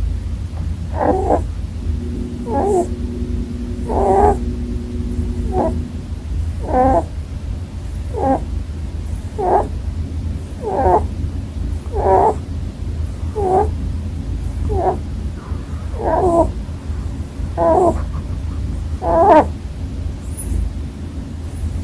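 Pet rabbit snoring in its sleep: about fourteen short snores at an even pace, one every second and a half or so, over a steady low hum.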